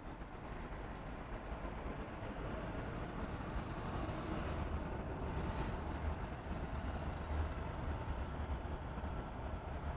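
Street traffic: a steady low rumble of vehicles that swells in the middle as a vehicle passes, then eases off.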